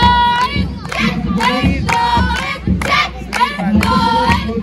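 A group of high voices singing, with a long held note at the start and another about four seconds in.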